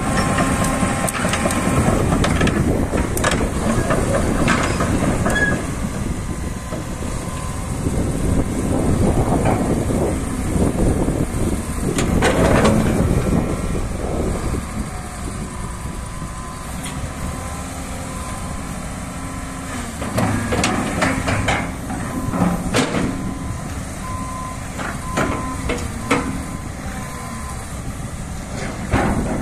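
Komatsu PC490LC excavator running its diesel engine and hydraulics as the boom and bucket swing, with occasional sharp metallic knocks. From about the middle onward a backup alarm beeps on and off.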